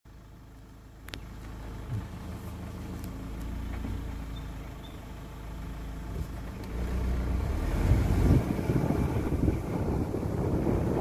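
A moving car's engine and road noise, heard from inside the car: a steady low rumble that grows louder about seven seconds in.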